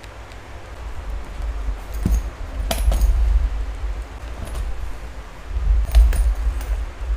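Hand-stitching a leather strap: thread being pulled through the stitching holes, with short rasps and rustles as it draws tight, a few of them sharper, around three and six seconds in. A low handling rumble runs underneath.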